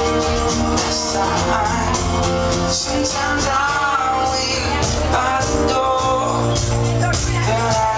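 Loud amplified pop-rock music: a male singer's live vocal over a full backing track with heavy bass and percussion.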